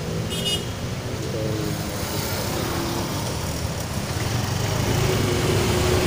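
Motorcycle engines running in street traffic at a crossing, with a brief high chirp about half a second in; the engine noise grows louder near the end as traffic moves off.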